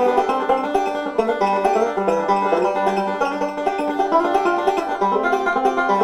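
Five-string banjo picked fast with fingerpicks in bluegrass style: a quick, unbroken stream of bright plucked notes.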